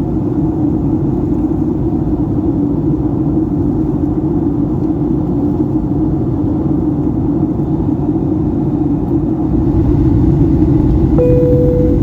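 Steady in-flight cabin rumble of a Boeing 757-300, from its jet engines and the airflow over the fuselage, growing a little louder about ten seconds in. Near the end a short steady tone sounds.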